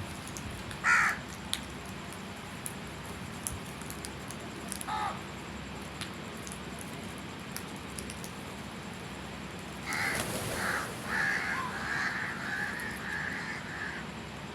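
Crows cawing: a single caw about a second in, another about five seconds in, then a run of several caws over the last four seconds.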